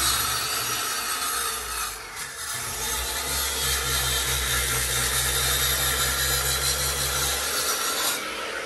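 Corded power saw cutting through the stucco exterior wall. It runs steadily, falters briefly about two seconds in, and eases off shortly before the end.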